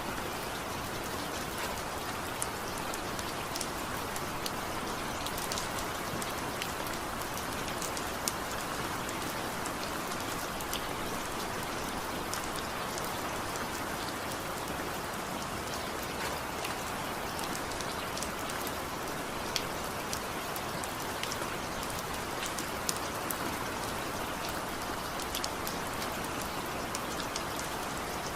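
Steady rainfall: an even hiss of rain with scattered individual drops ticking on a surface, no thunder.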